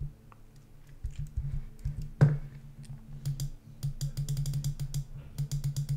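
Clicking and tapping on a computer keyboard and mouse: a few scattered clicks, a louder knock about two seconds in, then fast, dense clicking through the second half.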